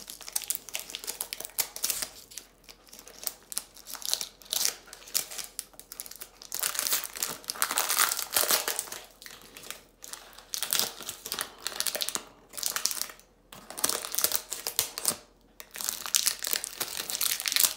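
Thin plastic wrapper of a Bowl Fresh toilet bowl freshener crinkling as it is opened and pulled off the freshener block and its wire hanger. The crinkling comes in irregular rustles with a few short pauses.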